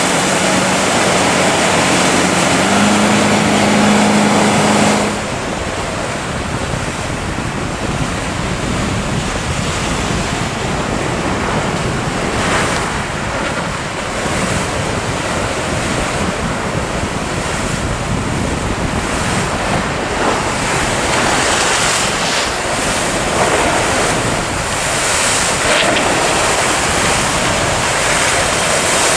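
A small boat's outboard motor running steadily, rising in pitch about three seconds in, then cutting away after about five seconds to rough sea surf churning and breaking, with wind buffeting the microphone.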